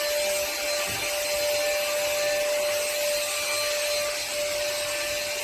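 A motor-driven cleaning machine running steadily, a constant rushing noise with a high whine held on one pitch.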